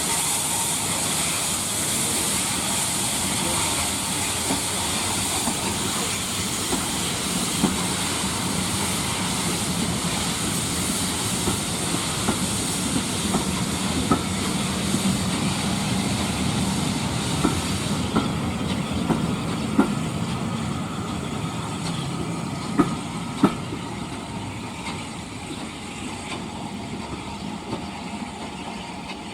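Steam train running, with a steady hiss of steam and a few sharp clicks scattered through; the hiss thins out and the whole sound grows gradually quieter over the last third.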